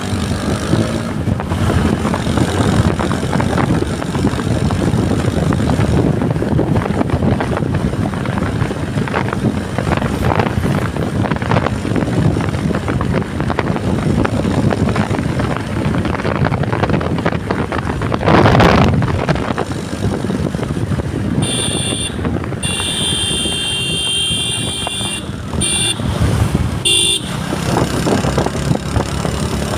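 Steady road noise of a motorcycle ride: engine running with wind rushing over the microphone, and a brief louder rush just after the middle. Later a vehicle horn beeps several times over about five seconds.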